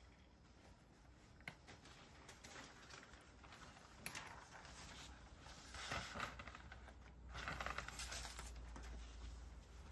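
A cat eating dry kibble from a bowl: faint crunching and small clicks of the pieces, with louder bursts of chewing about four, six and eight seconds in.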